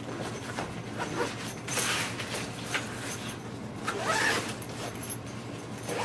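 Zippers being pulled and the fabric of a Dakine Mission Photo 25L backpack rustling as its pockets are handled, in several short rasps.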